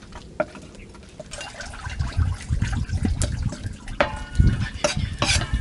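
Raw fish being handled and cut on a wooden chopping board: wet squelching with a few sharp knocks of the knife on the board, over low muffled thuds.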